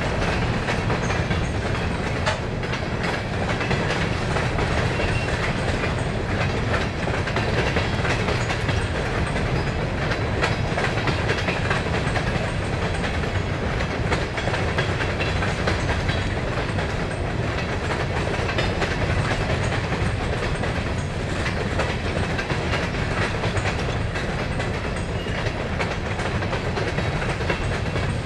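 Long string of Herzog open-top rock cars rolling past at steady speed: a continuous rumble of steel wheels on rail, with clickety-clack over the rail joints.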